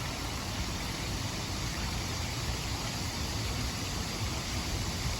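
Steady rush of water flowing in a stream, an even hiss with a low rumble underneath.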